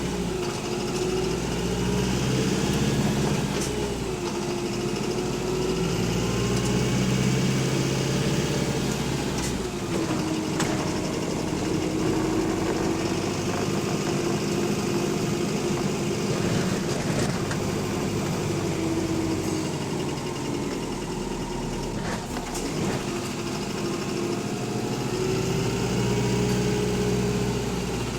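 Bus engine running with a loud rod knock, its note rising and falling as the engine speed changes.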